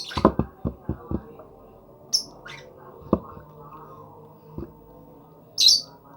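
Lovebird giving a few short, shrill chirps, the loudest near the end. A quick run of sharp taps or knocks in the first second, and two more later.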